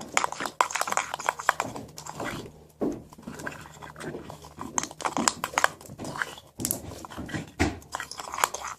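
Homemade slime of glue, shaving cream and baking soda being squished and stirred by hand in a bowl, making irregular sticky squelches and small clicks. The mixture has too much baking soda and has gone runny.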